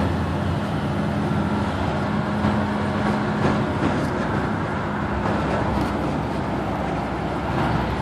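Inside a Blue Bird Vision school bus under way: its CAT C7 diesel engine runs with a steady hum over road and body noise.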